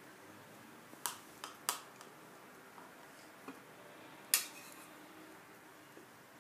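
Spoons clinking and tapping against cups and a mug as yogurt is stirred and scooped: a few light clinks between one and two seconds in, and a louder one a little past four seconds.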